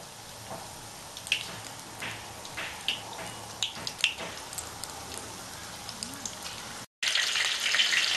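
Batter-coated paneer pakoras sizzling in hot oil in a kadai, with scattered sharp pops and crackles as pieces go into the oil. After a brief break near the end, a louder, dense sizzle of a full pan of pakoras deep-frying.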